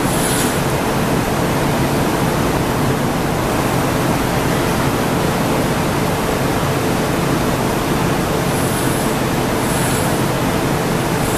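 Steady rushing noise of a gas-fired glory hole running, with a blowpipe held in its port to reheat the glass, over a low hum. A few faint high clinks near the end.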